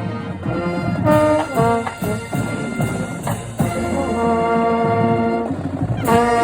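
College marching band playing: brass with drum hits in a run of short notes, then a long held brass chord, and a loud new chord struck near the end.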